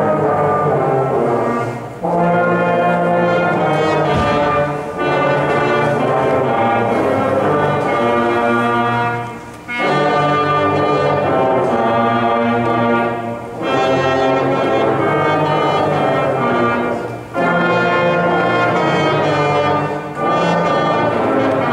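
A fifth-grade brass section playing together: a series of held chords in phrases of a few seconds, with short breaks between the phrases.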